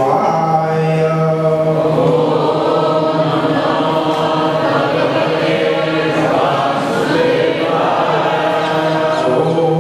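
Several voices chanting devotional prayers together in unison, on long held notes.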